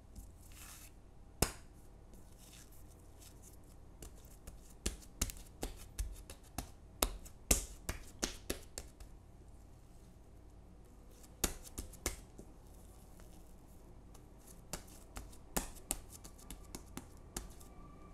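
Hands pressing and folding soft, tacky bread dough on a silicone baking mat: a scatter of small sticky clicks and taps as the dough lifts and settles, thickest in the middle with quieter gaps between.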